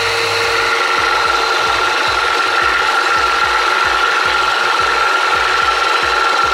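Electric hand mixer running steadily with a high motor whine, its beaters whisking a thin rice-and-egg batter in a bowl to a froth.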